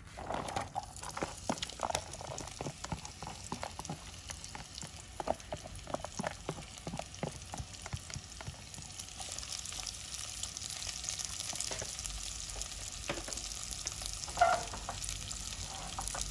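Chopped onions frying in hot olive oil in a pot: irregular crackles at first, then a steady sizzle from about nine seconds in, once the onions have been tipped into the oil. A single sharp knock stands out near the end.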